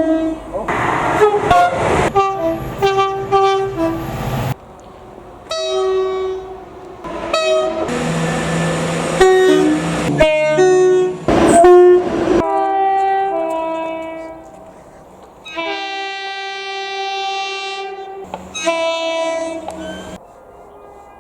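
Train horns sounding one after another, each blast cut off abruptly into the next. Several are chord horns sounding more than one note at once, at varying pitches, and about eight seconds in one horn plays over the rumble of a moving train.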